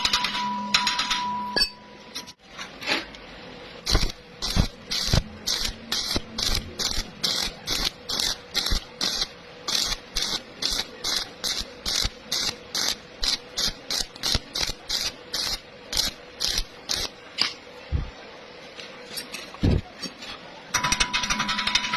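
Stick welding arc struck in short, crackling bursts, about two a second, with quiet gaps between: the rod is laid in stitch by stitch to bridge a wide gap. A dense buzzing with a steady tone comes at the start and again near the end.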